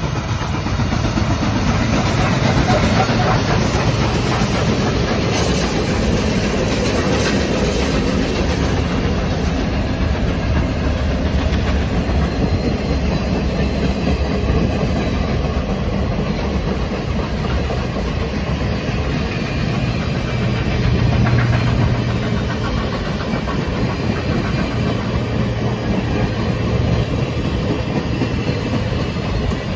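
Passenger train hauled by Canadian Pacific 4-6-4 Royal Hudson steam locomotive 2816 rolling past close by, its wheels on the rails making a steady, loud rumble.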